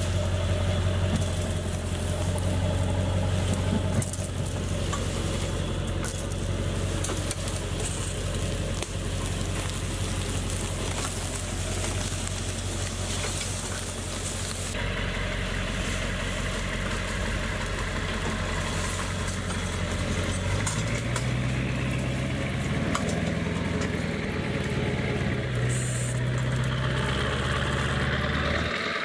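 Ford 4x4 pickup's engine running at low speed with a steady low hum as the truck tows the log on a buck arch. About two-thirds of the way through, a higher engine note joins in.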